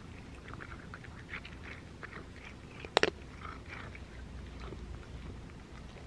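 Cat eating from a bowl of kibble: irregular soft crunching and chewing sounds, with one sharp click about halfway through.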